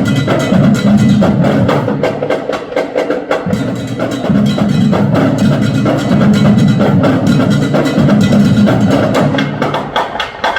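Marching drum line playing a loud, fast cadence: dense snare and tenor strokes over bass drums. The low drums drop out for about a second near the middle and again near the end.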